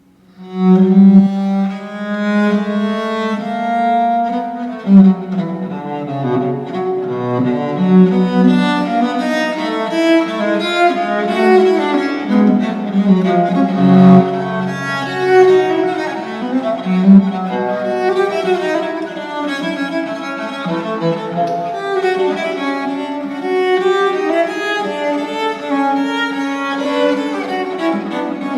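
Recorded classical music on bowed cello, with sustained notes and a moving melodic line, starting sharply after a brief silence at the beginning.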